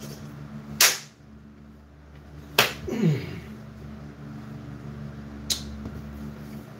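Pizza dough slapping against bare hands as it is tossed and caught. There are two sharp slaps nearly two seconds apart, and a lighter one a few seconds later.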